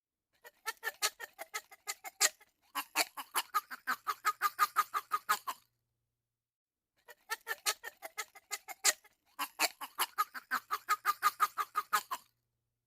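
Plastic drinking straw squeaking in quick, rhythmic strokes, about six squeaks a second. There are two runs of about five seconds each, with a pause of about a second and a half between them.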